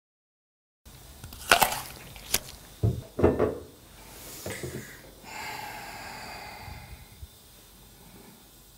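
Crisp crunches of a bite into a raw red apple: two sharp cracks, then a burst of crunching. About five seconds in comes a steady ringing tone lasting about two seconds.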